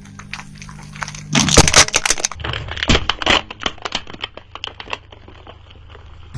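A car tyre rolling over and crushing brittle items: a loud burst of crunching about a second in, then a run of crackling snaps that thin out, over the low steady running of the car's engine.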